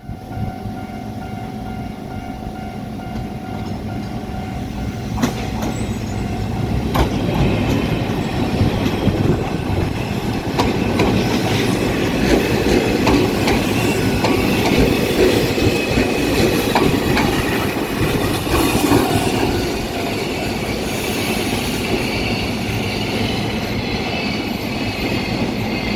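Ohmi Railway 800/820 series electric train running on the track, with wheels clattering over rail joints and some wheel squeal. The noise builds over the first dozen seconds and is loudest midway.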